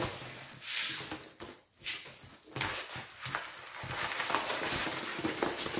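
Diamond painting canvas and its clear protective film rustling and crinkling as it is rolled back the other way to flatten it: a brief swish near the start, a short lull, then a steady crackle.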